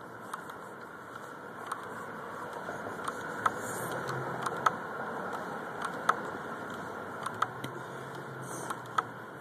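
Irregular sharp clicks and knocks from a phone being handled on a rocking playground seesaw, over a steady rushing noise that swells in the middle.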